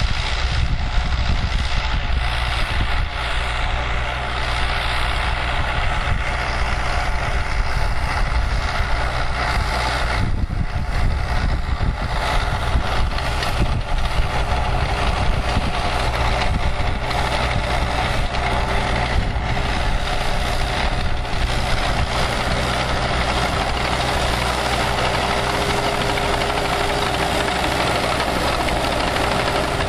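New Holland TK4060 crawler tractor's diesel engine running steadily under heavy load while pulling a vibrocultivator through tilled soil.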